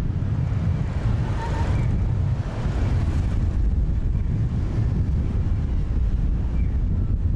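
Steady low rumble of outdoor city traffic with wind buffeting the microphone, and a rushing swell of noise lasting from about one second in to three and a half seconds.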